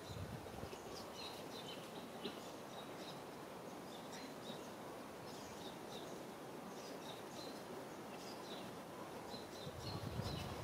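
Outdoor background hiss with many short, high chirps scattered throughout, and a brief low rumble near the end.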